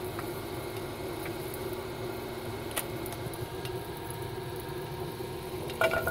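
A steady mechanical hum, like a motor or fan running, with a short clink near the end.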